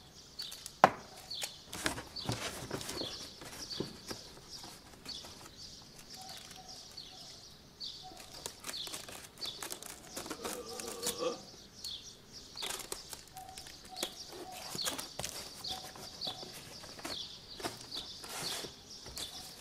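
Cardboard being handled and worked, with scattered rustles and knocks and one sharp knock about a second in. Birds chirp over and over in the background.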